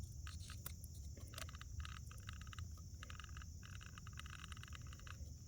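Drivetrain of a crashed small RC helicopter turned by hand, giving faint spurts of rapid, crunchy clicking as the gears turn. The crunch is a sign of crash damage, which might just be the tail drive.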